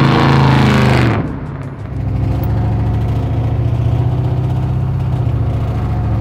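1967 Chevy C10's engine and Black Widow exhaust accelerating past with a rising note, dropping away about a second in. It then runs steadily at a lower pitch as the truck cruises.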